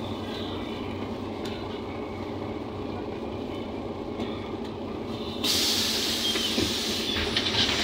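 Interior of a NefAZ 5299 city bus standing with its engine idling in a steady low rumble. About five and a half seconds in, a loud hiss starts suddenly and keeps going.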